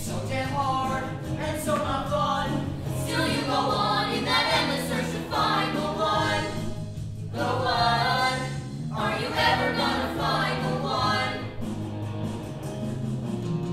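A teenage stage cast singing a musical-theatre number together over instrumental accompaniment, in sung phrases with a short break about seven seconds in.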